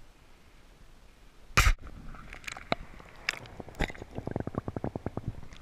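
Handling noise close to the microphone as a hand grips the camera: a loud knock, then scattered knocks and a rapid run of even clicks, about ten a second, near the end.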